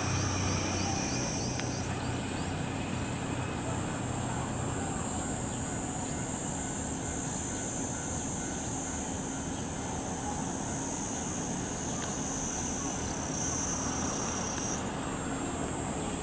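A chorus of cicadas keeps up a steady, high chirring drone. Under it, a Hankyu electric train approaches the platform faintly.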